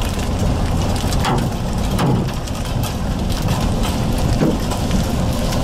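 Rain and hail hitting a moving car's roof and windshield, a steady patter dotted with sharp knocks, over the car's road noise. The hail is heavy enough to crack the windshield.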